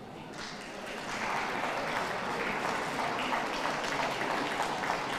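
Audience applauding: the clapping starts about a third of a second in, swells about a second in, then goes on steadily.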